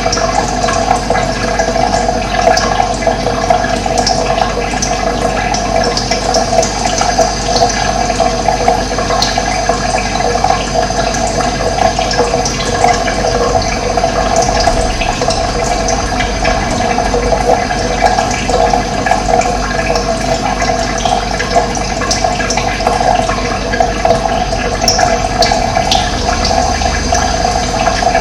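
Steady rush of running water, an even, unbroken flow, with faint short bird chirps scattered over it.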